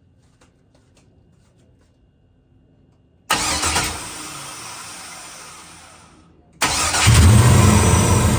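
Procharger-supercharged LS V8 in a 1971 Chevelle being started on a fresh tune. After about three quiet seconds it suddenly fires and the sound fades away. About six and a half seconds in it fires again and runs loud with a deep note. It starts but won't keep running, which the owner puts down to the tune.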